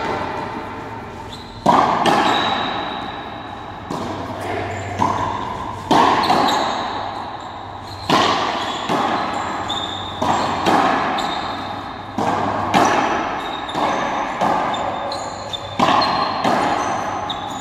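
Frontenis rally: a rubber ball struck by rackets and hitting the fronton's front wall, sharp cracks every second or two, each trailing a long echo around the walled court.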